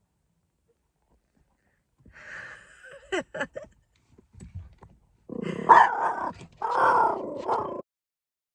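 Dog barking: a few short, sharp barks about three seconds in, then two longer, louder barking calls near the end.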